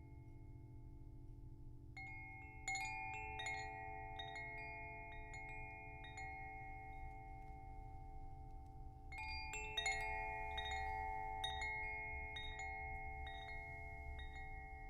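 Chimes ringing in two flurries of strikes, about two seconds and nine seconds in, each tone ringing on long after it is struck, over a low steady hum.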